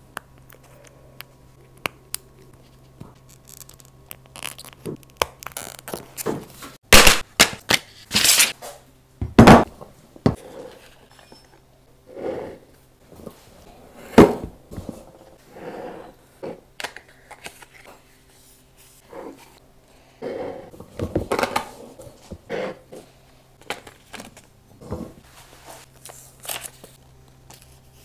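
Leatherworking handling sounds: scattered clicks, scrapes and sharp knocks from tools and leather pieces being worked, the loudest a cluster of knocks in the middle, over a steady low hum.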